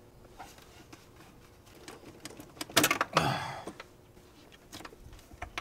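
Light plastic and metal clicks of hands working at a BMW idle control valve and its electrical connector, with a louder clatter and a brief scrape about three seconds in.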